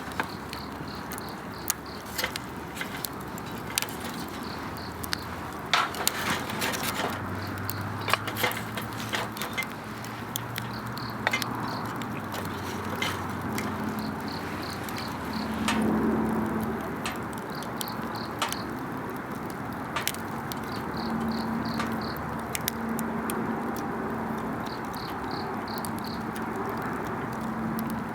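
Wood campfire crackling, with sharp pops scattered throughout and a brief swell of the flames about halfway through. Insects chirp in short pulsed trills, repeating in regular groups.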